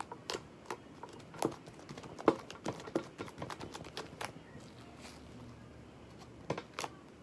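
Homemade slime being squeezed and pulled by hand, giving a string of small, irregular clicks and pops.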